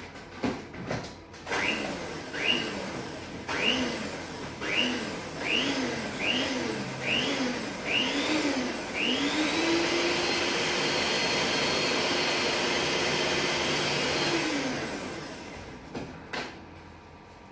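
Electric hand mixer beating cake batter in a bowl while flour is worked in a little at a time. It starts in about nine short bursts, each rising and falling in pitch, then runs steadily for about five seconds before winding down. A couple of knocks follow near the end.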